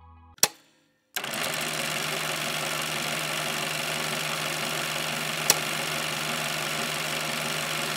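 Film projector sound effect: a click, then a steady mechanical whirr and hiss with a low hum that starts about a second in, and another sharp click about five and a half seconds in.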